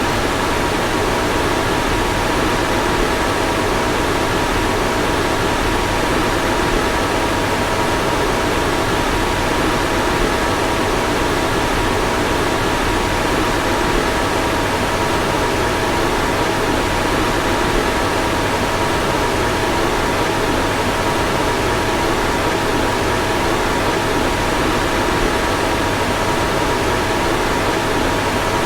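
A car's fan running steadily: an even rush of blown air with two faint, constant humming tones.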